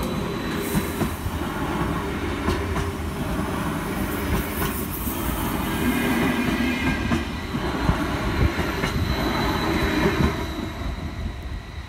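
Stadler FLIRT electric multiple unit passing over a level crossing: steady wheel-on-rail rumble with a click every couple of seconds as wheelsets cross the joints. The sound fades away near the end as the last car clears the crossing.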